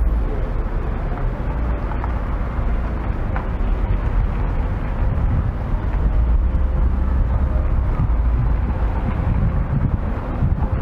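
City street ambience: a steady rumble of road traffic, with wind buffeting the microphone.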